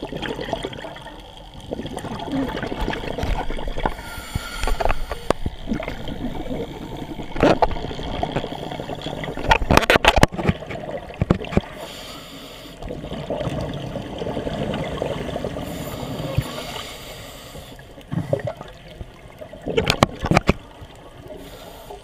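Scuba diving underwater: a diver's regulator breathing, with the hiss of inhalation and exhaled bubbles gurgling in uneven surges. Several sharp clicks cut through, loudest about ten seconds in and again near the end.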